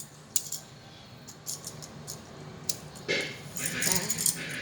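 Magnetic building tiles clicking and clacking against each other as they are snapped together, in scattered short knocks.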